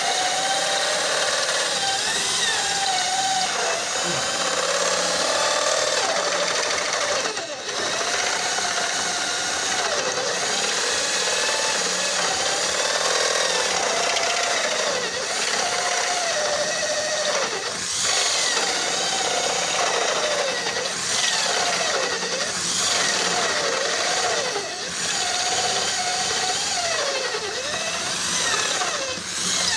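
INGCO corded electric drill in a drill stand running without a break as it bores down into a workpiece. Its pitch dips and recovers over and over as the bit bites under feed pressure.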